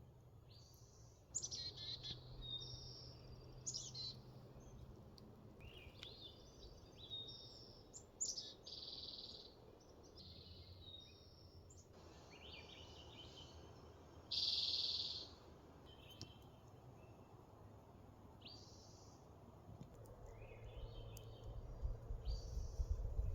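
Songbirds singing: a string of separate chirps and short song phrases, one of them louder about two-thirds of the way through, with a low rumble building near the end.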